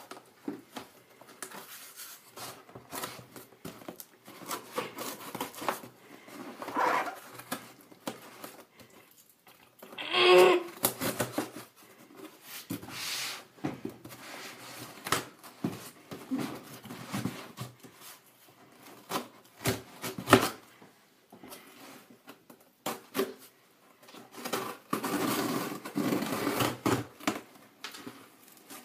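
Utility knife slicing through packing tape on a cardboard shipping box, with scattered scrapes, taps and rustles of the cardboard. There is one louder rip about ten seconds in, and a longer stretch of scraping and flapping cardboard near the end as the flaps are pulled open.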